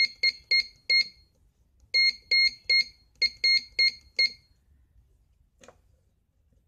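A Morse code practice oscillator sounding a high, steady tone keyed as short beeps in three quick groups, like Morse dits being sent. A faint click follows near the end.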